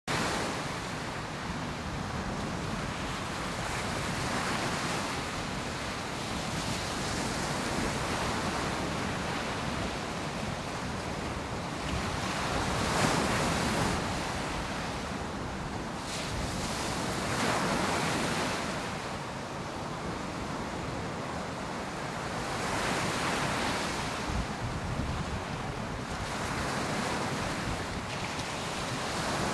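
Ocean surf breaking on a beach, a steady wash that swells and eases as each wave comes in, with the louder breaks about 13 and 18 seconds in. Some wind on the microphone.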